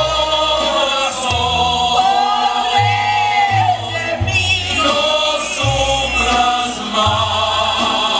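Live mariachi music: a voice sings long held notes over deep bass notes that change about once a second.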